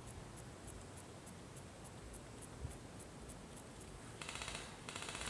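Airsoft guns firing two rapid full-auto bursts, starting about four seconds in. Before them there is only a faint high ticking about three times a second.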